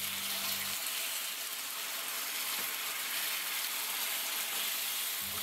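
Chicken curry sizzling steadily in a hot pan as chicken stock goes in with the paste, chicken and potatoes.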